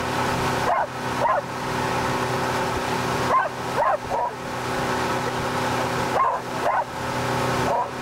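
Dog whining and yipping in short, high, repeated calls, often two close together, over the steady drone of a boat engine and the rush of the wake.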